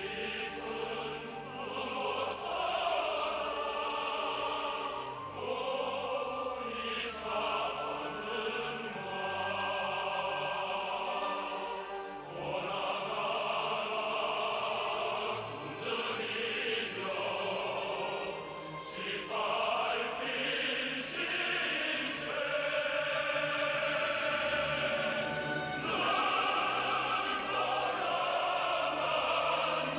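Opera music: voices singing long held notes over orchestral accompaniment.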